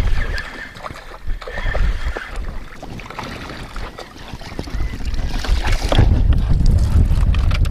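A hooked spotted seatrout splashing at the surface beside a kayak and being scooped into a landing net, with knocks of handling against the hull; the splash rises about five seconds in. Wind rumbles on the microphone underneath, growing louder near the end.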